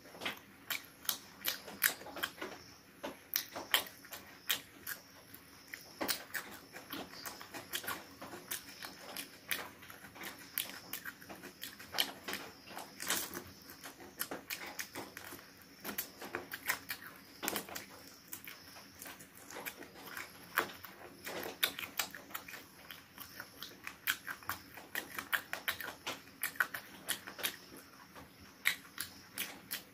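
Close-miked eating of cooked chicken pieces by hand: open-mouthed chewing and smacking, with many irregular sharp wet clicks and small crunches.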